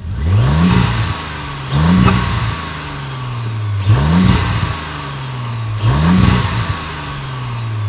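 Audi B9 S4's turbocharged 3.0-litre V6 free-revved four times while standing, breathing through a newly fitted carbon-fibre cold-air intake. Each rev rises quickly and falls back slowly, about two seconds apart, with a rush of intake and turbo induction noise on each rise.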